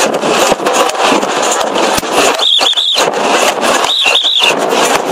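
Loud crowd din full of sharp cracks, with a whistle blown twice in short warbling trills about a second and a half apart.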